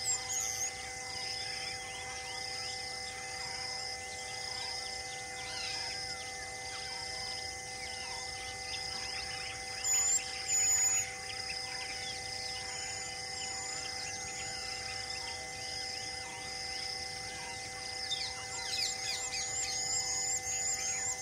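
Outdoor ambience with birds calling: two short, loud, high calls about halfway through and a quick run of repeated chirps near the end. Underneath runs a steady hum and a regular high-pitched pulse a little more than once a second.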